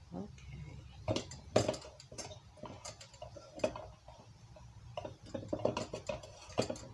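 Hands shaping raw ground beef into balls and scraping the mixture from a stainless steel bowl: irregular soft slaps and clicks of the wet meat and fingers against the metal bowl.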